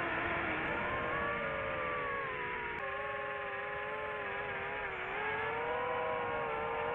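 DJI FPV quadcopter's motors and Master Airscrew propellers whining, the pitch rising and falling with the throttle as the drone manoeuvres.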